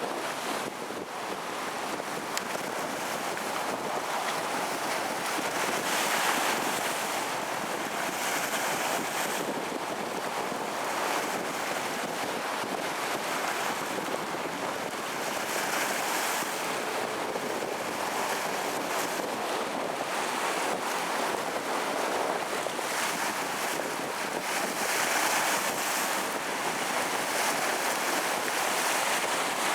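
Rough storm surf on the Gulf of Mexico with strong wind blowing across the microphone, a continuous rushing noise that swells and eases every few seconds.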